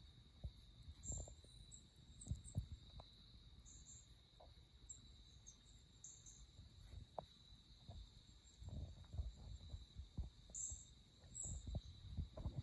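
Faint outdoor nature soundtrack from the cat TV video: a steady high insect drone with a few short high bird chirps. Soft irregular low thumps and rustles come close by and grow more frequent in the last few seconds.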